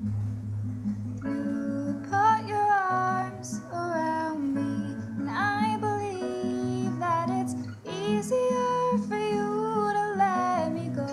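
A woman singing a song solo over guitar accompaniment. The voice comes in about a second in and sings several phrases.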